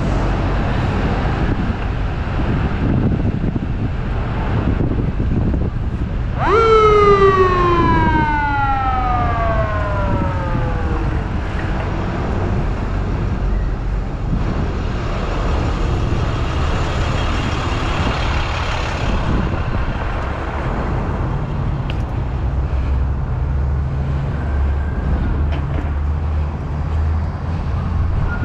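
An emergency-vehicle siren over steady rushing noise: about six seconds in the siren tone jumps up and then slides down over about five seconds, and near the end a tone rises again. A low steady engine hum joins from about the middle on.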